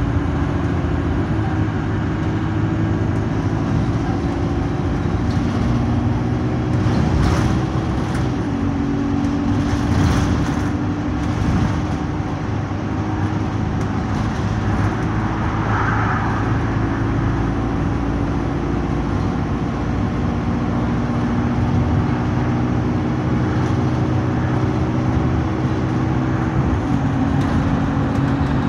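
Alexander Dennis Enviro200 bus engine running under way, heard from inside the saloon: a steady drone whose pitch steps a few times, with a few knocks and rattles about a third of the way in. The bus's Allison automatic gearbox is in limp mode, with no kickdown.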